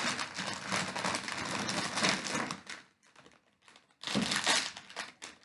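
Crinkling of a small blind-bag figure wrapper handled and torn open by hand: continuous crinkling for almost three seconds, then a short burst of it about four seconds in.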